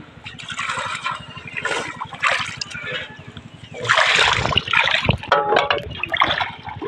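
Shallow water splashing and sloshing in irregular bursts, as of bare feet wading through muddy paddy-field water, loudest about four seconds in.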